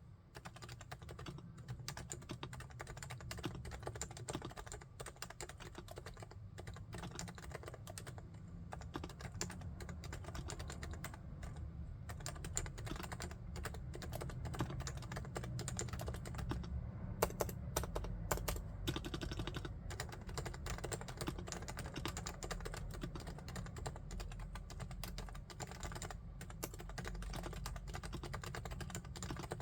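Typing on a Realforce R3 tenkeyless keyboard with silent 45 g Topre electro-capacitive switches: a continuous, dense stream of keystrokes.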